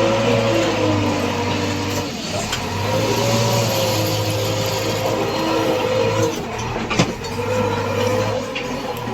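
JCB 3DX backhoe loader's diesel engine running under working load, with a wavering whine that fades and returns every few seconds as the machine works. There is a single sharp knock about seven seconds in.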